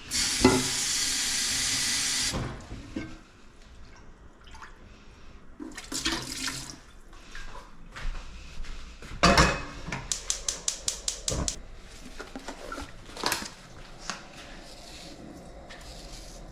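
Kitchen tap running full for about two seconds, then shut off. It is followed by scattered kitchen handling sounds: short clatters and brief splashes, a quick even run of about ten sharp knocks about ten seconds in, and a single knock near the end.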